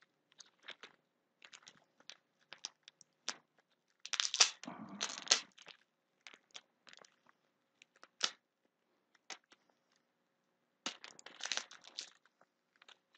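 Clear plastic bag crinkling and rustling in many short bursts as it is handled and pulled off a wristwatch. The loudest rustles come about four to six seconds in and again near the end.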